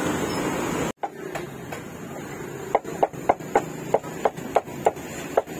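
Busy street noise cuts off about a second in. Then a cleaver chops meat on a wooden block: light knocks at first, then steady strong strokes about three a second.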